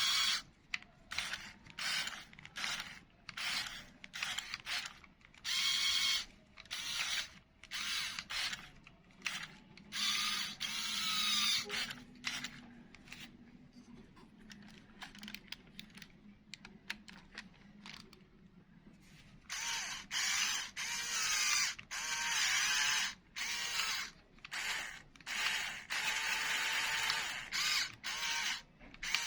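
Electric motor and plastic gears of a remote-controlled LEGO Technic chassis whirring in short stop-start bursts, about two dozen, some lasting a second or more, with a whine that rises and falls in pitch as the motor speeds up and slows.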